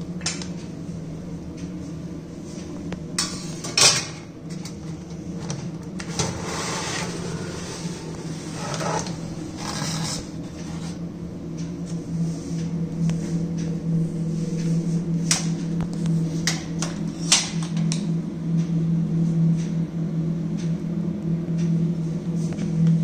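Sterilisation pouches rustling and metal instrument trays clinking and knocking as they are slid onto the rack of a tabletop autoclave, over a steady low hum. The loudest knock comes about four seconds in.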